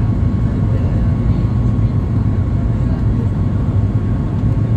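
Steady cabin noise inside a Boeing 737 MAX 8 in its climb after takeoff: its CFM LEAP-1B engines and rushing airflow, heard as a loud, even low hum with a faint steady whine above it.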